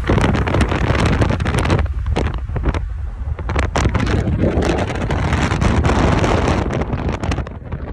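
Wind buffeting a camera microphone on a road bike at speed, heard as a loud, ragged rumble with irregular crackles and knocks.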